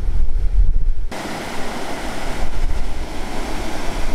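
Wind buffeting the microphone as a heavy low rumble; about a second in it cuts off abruptly and a steady, even rushing hiss takes over.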